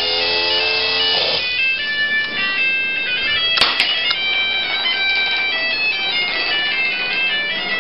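Flying-helicopter alarm clock going off: a loud, buzzy electronic alarm tune of quickly changing high beeping notes. A couple of sharp clicks come about three and a half seconds in.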